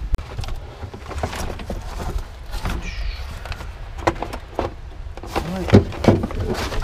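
Gloved hands rummaging under the carpeted trunk liner of a police car: irregular scrapes, rustles and small knocks as the carpet and parts underneath are pulled and shifted. A steady low rumble of wind on the microphone runs underneath.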